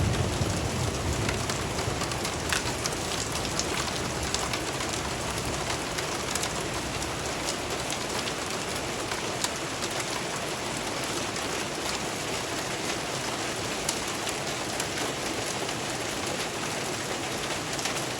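Steady rain falling on surfaces during a hail shower, with scattered sharp ticks of single hard impacts. A low thunder rumble dies away in the first second.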